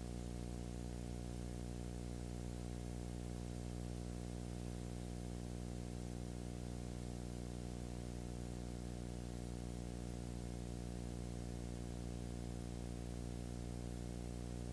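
Steady electrical hum with a constant hiss, unchanging throughout; no sound from the filmed scene.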